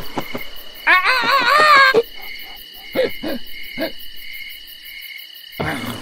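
An owl's hoot sound effect: one wavering, quavering hoot about a second long, over a steady background of night-time cricket chirping.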